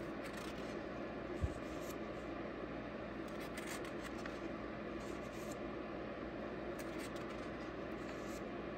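Pages of an oversized comic book being turned by hand: short, soft paper swishes every second or two over a steady background hiss, with one brief low thump about a second and a half in.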